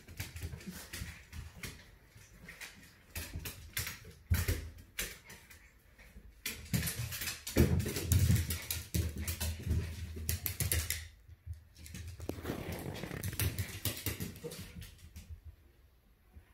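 Toy poodle's paws pattering and claws clicking irregularly on a hardwood floor as it moves around close to a cat. Louder scuffling comes about halfway through.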